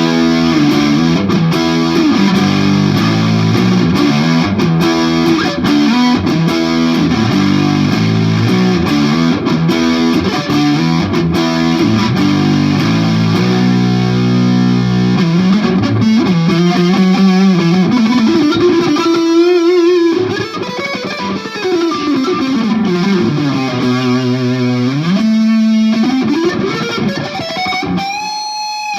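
PRS Singlecut electric guitar played with overdrive through a Marshall JCM 2000 amp: a dense distorted riff for the first half, then long sweeping slides up and down in pitch from about halfway through.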